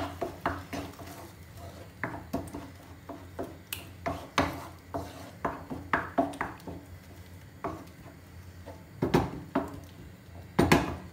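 A spoon stirring tomato sauce in a nonstick frying pan, scraping and clicking against the pan at an uneven pace. Two louder knocks come near the end.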